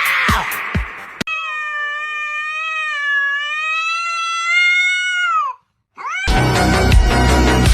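Music with a beat, then a cat's long drawn-out meow of about four seconds that drops in pitch at the end. After a brief silence comes a short rising call, and then loud music with a heavy beat.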